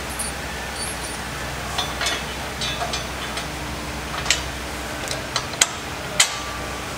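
Scattered light metallic clinks and clicks of bolt hardware being handled on a steel-and-aluminium plow mounting bracket. The three sharpest clicks come in the second half. A steady low hum runs underneath.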